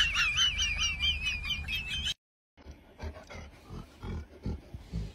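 Small white fluffy puppy howling in a high, rapidly wavering tone for about two seconds, then cutting off suddenly. After that, a large black dog makes a few soft, short, low sounds.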